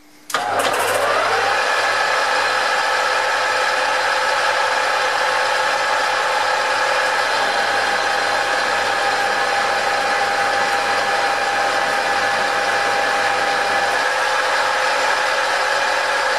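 Metal lathe switched on about a quarter second in, spinning up over about a second, then running steadily at speed with a geared whine, turning down the end of a steel shaft with a carbide tool.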